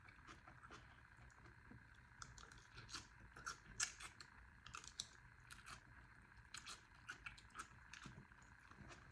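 Faint sounds of eating noodle soup: scattered small clicks of mouth and utensils, the loudest nearly four seconds in.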